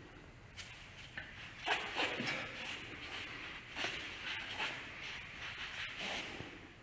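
Soft rustling and brushing of forearms and clothing as two people press against each other in a partner drill, with a few scattered light taps and shuffles.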